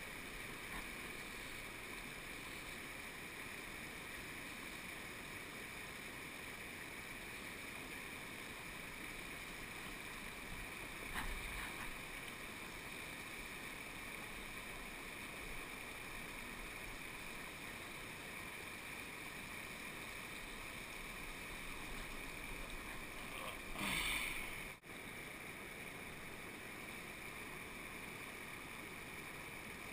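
Steady rush of a stream and small waterfall, with a short louder noise about eleven seconds in and a longer, louder one about twenty-four seconds in that cuts off suddenly.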